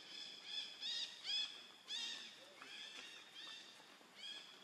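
Animal calls: a quick, uneven run of about a dozen short, high-pitched chirps, each rising then falling in pitch, loudest in the first two seconds.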